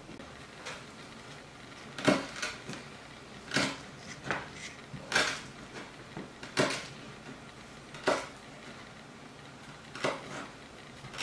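A knife knocking and clicking on a wooden cutting board while cutting and shaping slices of white root vegetable: about seven short, sharp knocks spaced a second or two apart.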